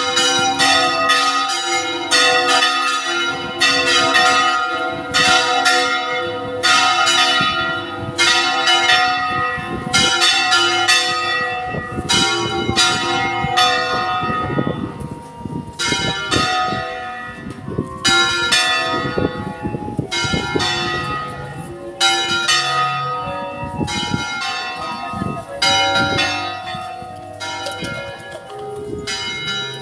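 Church bells ringing: several bells struck repeatedly, about a stroke a second, each ringing on as the next one sounds.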